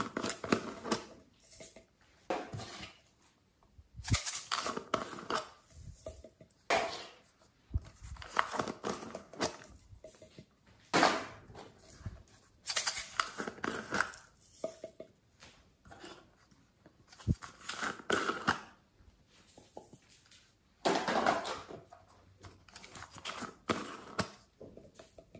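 Small plastic slime containers being handled and opened: irregular bursts of plastic scraping and clicking every couple of seconds.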